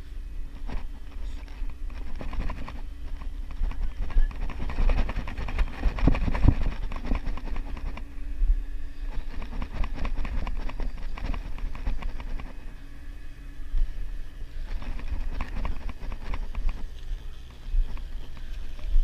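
Fly line and reel working during the fight with a hooked fish: dense, irregular clicking and rustling, busiest a few seconds in, over the steady low hum of the fishing boat's engine.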